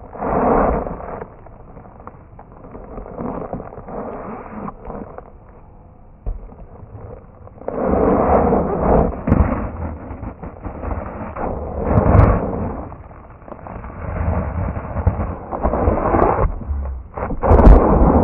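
Irregular crunching and scraping of snow under a plastic boogie board as a rider shifts and rocks on a snow mound, ending in a heavy thump about half a second before the end as he falls onto the snow.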